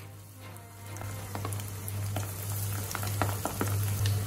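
Breadcrumb-coated prawns sizzling as they are dropped into hot oil in a kadhai, the oil crackling and popping, growing louder from about a second in as more prawns go in. A steady low hum runs underneath.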